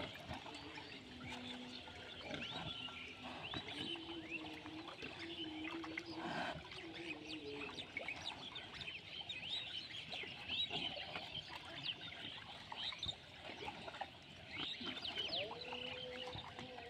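Small birds chirping and twittering continuously. A faint steady drone comes and goes underneath.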